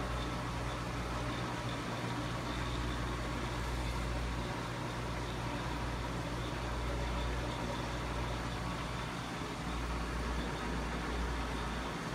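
Steady low mechanical hum over a constant hiss, from aquarium equipment such as filter and water pumps running.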